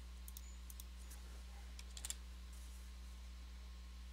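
A few sharp clicks of a computer mouse and keyboard, several close together about two seconds in, over a steady low electrical hum.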